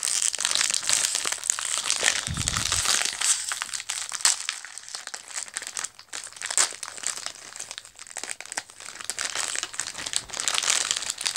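Foil blind-bag wrapper crinkling and crackling in the hands as it is worked open, with many small sharp crackles and a dull bump about two seconds in.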